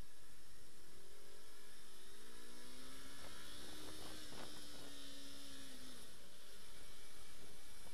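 Yamaha R25's parallel-twin engine running under way, a steady hum whose pitch climbs slowly over the first few seconds and then eases off.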